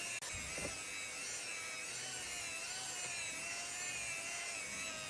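Electric car polisher running steadily on the paint, a motor whine that wavers slightly in pitch as it buffs the scratch-removal wax into the scratched panel.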